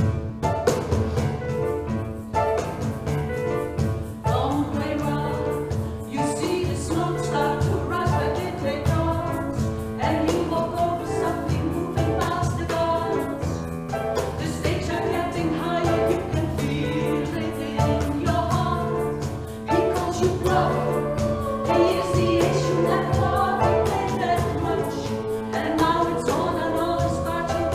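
Small mixed vocal group of men and women singing a song together in harmony.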